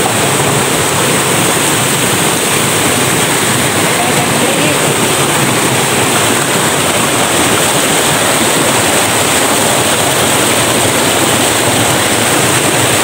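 Small mountain stream cascading over boulders in white water, a loud, steady rush close to the microphone.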